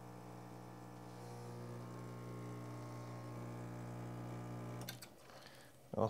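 Profitec Pro 400 espresso machine's pump humming steadily while a shot of espresso extracts. About five seconds in it cuts off with a couple of clicks as the shot is stopped.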